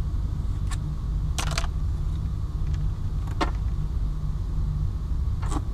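A handful of short sharp plastic clicks and a brief rattle over a steady low rumble, as a hand works the plastic clip and fittings in a car's roof headliner. There are four clicks, with the rattle about one and a half seconds in.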